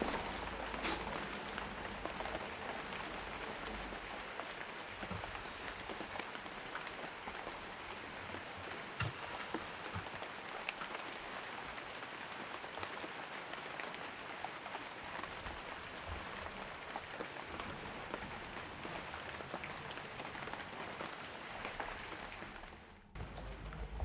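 Steady rain falling, an even patter with a few louder single drips; it cuts off briefly near the end.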